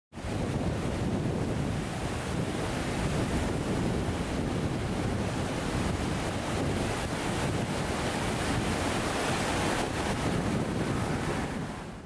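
Steady rush of water with no distinct events, fading out in the last half-second.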